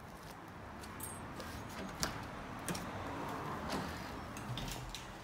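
A front door being unlatched and pushed open: a sharp click about two seconds in, then a few softer knocks and rattles.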